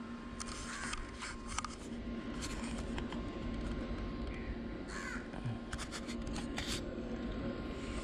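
A bird's harsh cawing calls, a crow by their sound, over scattered light clicks and knocks of hands handling the motorcycle's headlamp assembly.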